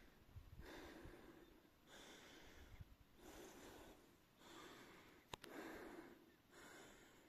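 Faint, rhythmic breathing of a climber working hard on the ascent at about 3,600 m, a breath a little more than once a second, with a single sharp click about five seconds in.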